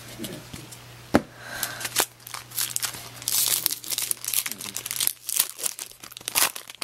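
Foil wrapper of a 2002 Bowman baseball card pack crinkling and tearing as it is opened by hand, in a run of sharp crackles.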